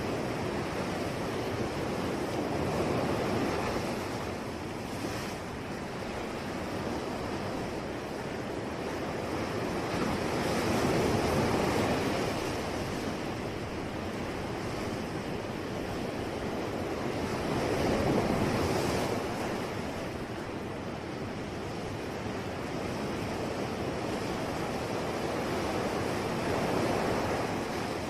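Ocean surf: waves breaking and washing in a continuous hiss that swells louder four times, roughly every eight seconds.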